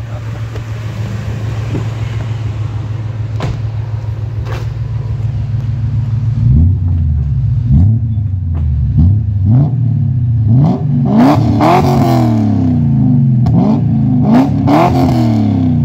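Dinan-modified BMW E39 M5 V8 heard at its quad tailpipes, idling steadily and then, about six seconds in, free-revved in a quick series of about ten short throttle blips, each rev rising and falling.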